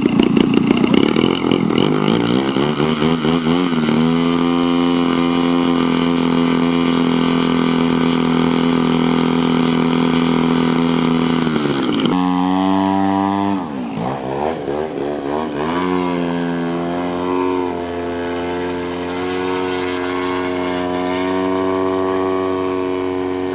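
Radio-controlled model airplane's engine running. Its pitch climbs over the first few seconds and then holds steady at high throttle. About halfway through it drops sharply and climbs back up, then runs steadily again.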